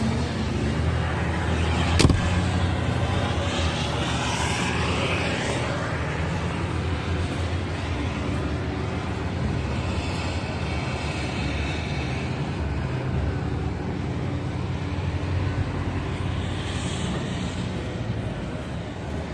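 Liebherr R9200 mining excavator's diesel engine running steadily, with a single sharp click about two seconds in.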